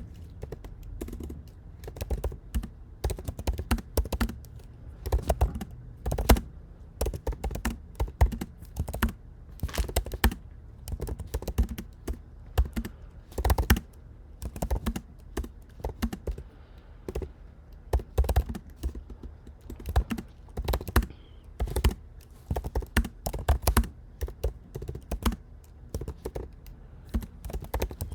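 Fast touch-typing on a MacBook Pro 14-inch's built-in keyboard: a continuous, irregular run of key clicks, with now and then a much louder stroke.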